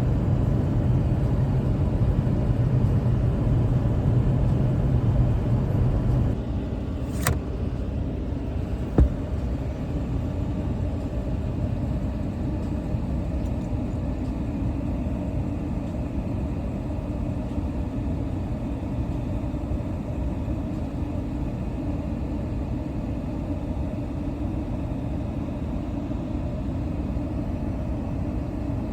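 Steady low rumble of road traffic, a little louder for the first six seconds, with a sharp click about seven seconds in and a short knock about two seconds later.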